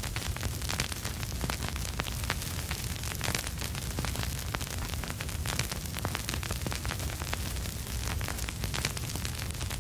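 Vinyl record surface noise: many irregular crackles and pops over a steady hiss and a low rumble, with no music playing.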